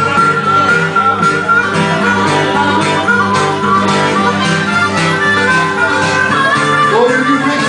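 Instrumental break of an acoustic country-blues band: harmonica playing held, bending notes over steadily strummed acoustic guitar.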